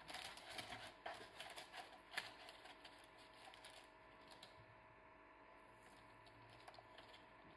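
Faint rustling and light clicks of parchment paper as sliced onion rings are laid on a baking tray, bunched in the first two seconds or so. After that there is near silence.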